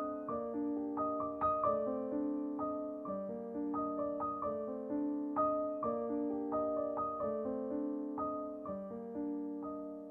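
Background piano music: a gentle melody of struck notes over chords, each note ringing and fading.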